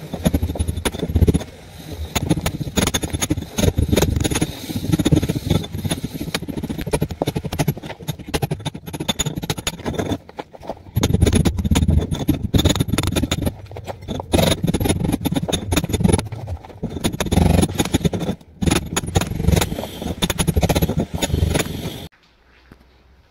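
Angle grinder cutting pipe chases into a brick wall, its noise rising and falling in bursts of a few seconds as the disc bites into the brick, with short pauses. It stops about a second before the end.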